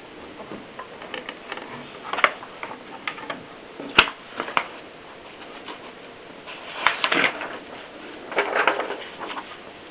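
Adler Tippa portable manual typewriter clicking and clacking at an uneven pace, with a few sharp single strikes and short rattling clusters of the mechanism.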